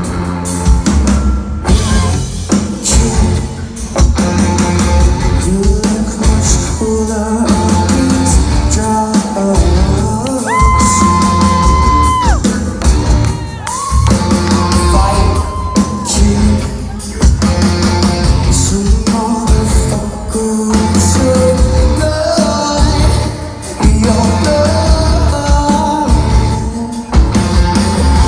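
Live rock band playing loud in a large hall, with drums, guitars and a singer, including a long held high note about ten seconds in.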